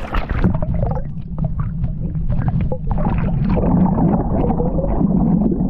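Water sloshing and gurgling as a big jack crevalle is held in the water and released, with a heavy low rumble and crackling splashes.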